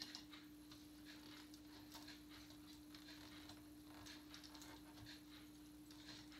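Near silence: room tone with a steady low hum and faint, scattered small clicks.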